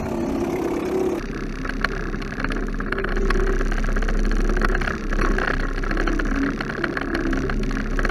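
Evinrude 3-horsepower two-stroke outboard motor running steadily at low speed, driving a small dinghy.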